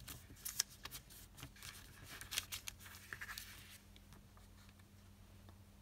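Sheet of origami paper rustling and crackling as hands fold it and press the creases flat: a quick string of soft crackles that thins out after about four seconds.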